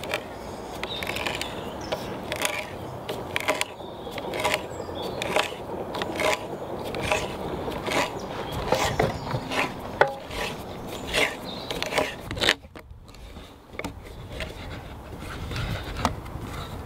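Hand auger bit boring into green oak, scraping and creaking in a regular rhythm of roughly one to two strokes a second as the bit is turned and chews out shavings, with a brief pause about 13 seconds in.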